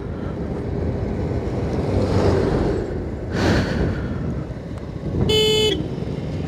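Motorcycle riding along a road with steady engine and wind rumble and a brief rush of noise past the midpoint; a vehicle horn sounds once for about half a second near the end.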